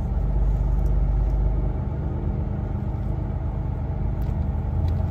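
Vehicle engine idling: a steady low rumble with an even hum.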